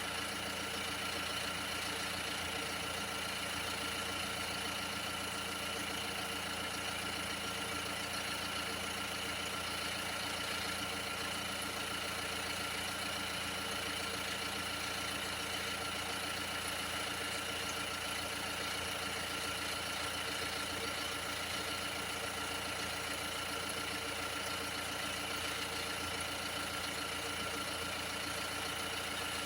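Mini F60 diesel engine idling steadily.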